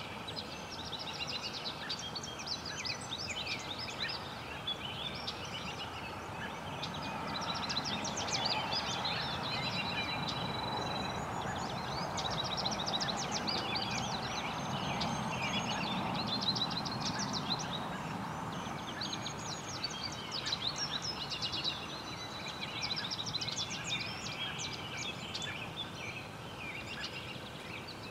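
Songbirds chirping and trilling in a dense background chorus, with a few held whistled notes. A low rushing noise under it swells in the middle.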